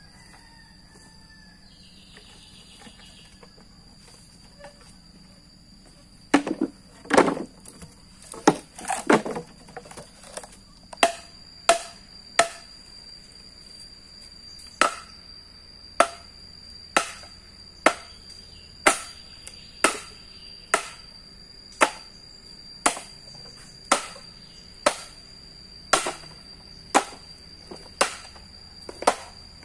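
Repeated sharp chopping strikes begin about six seconds in, irregular at first and then about one a second, each with a short ring. A steady high-pitched insect drone runs underneath.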